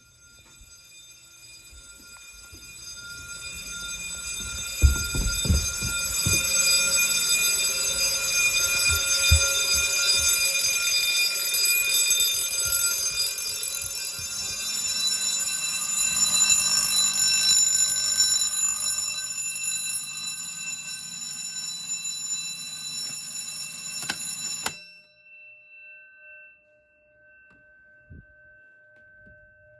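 Electric fire alarm bells ringing continuously, growing louder over the first few seconds. They cut off suddenly about 25 seconds in, and a faint steady hum of the gong ringing on is left after.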